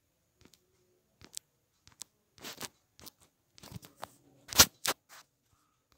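A run of short scrapes and clicks, about a dozen over four seconds, the loudest a sharp crack about three-quarters of the way in.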